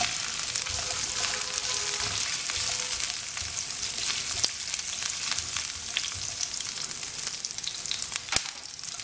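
Chunks of onion sizzling in hot olive oil with ginger-garlic paste in a non-stick frying pan, with the scrapes and taps of a silicone spatula stirring them; a sharp tap near the end.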